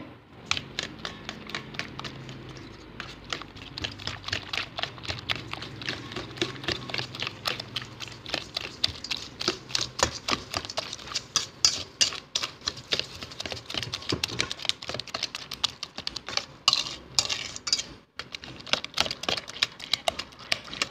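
Wire balloon whisk beating egg whites by hand in a stainless steel bowl, the wires clicking rapidly and steadily against the metal, with a brief pause near the end. The whites are being whipped toward meringue.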